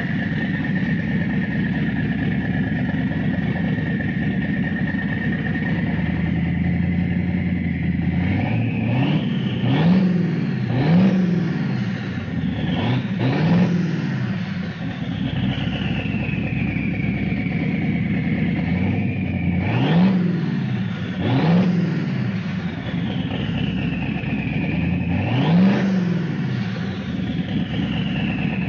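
Twin-turbocharged Chevy small-block V8 idling steadily, then revved in six quick throttle blips in three groups. After the revs a high whistle, the turbos winding down, falls slowly in pitch.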